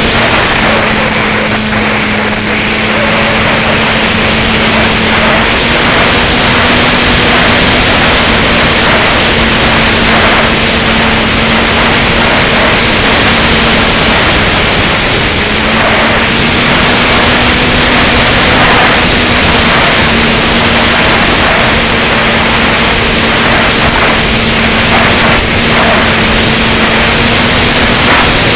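Wind rushing over the onboard camera's microphone of a Flyzone Seawind RC seaplane in flight, with the steady hum of its electric motor and propeller underneath. The hum drops slightly in pitch about two seconds in and again around fourteen to sixteen seconds, as the throttle eases.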